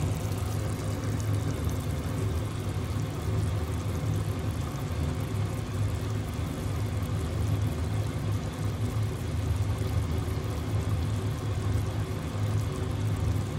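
A steady low mechanical hum and whir that keeps on evenly without change.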